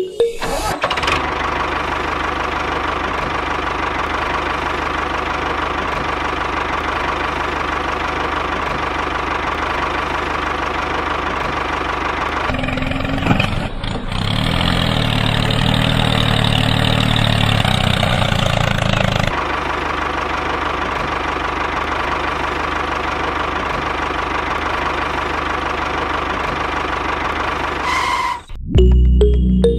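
Tractor engine running steadily, turning heavier and lower for several seconds in the middle before settling back. Music cuts in near the end.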